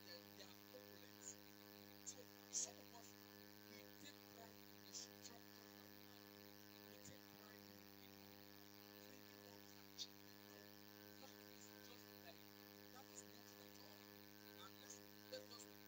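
Faint steady electrical mains hum, a buzz made of many evenly spaced tones, with a few short faint ticks; the loudest comes about two and a half seconds in.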